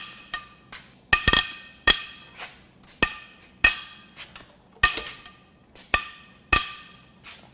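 About ten sharp metal-on-metal clanks, each ringing briefly, at uneven intervals and some in quick pairs, from a long breaker bar and socket being worked on tight cylinder-head bolts of an aluminium V6 head.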